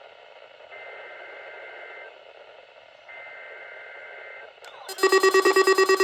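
Emergency Alert System SAME header: two bursts of the raspy two-pitch digital data tone, each about a second and a half long with a second's gap, over radio hiss. About five seconds in, the loud, pulsing EAS attention tone starts.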